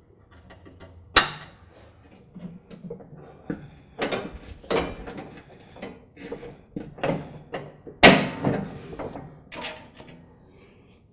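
Clanks and knocks of a riding mower's deck hardware being fitted by hand: a sharp knock about a second in, then a run of rattles and thumps from about four seconds, with the loudest knock about eight seconds in.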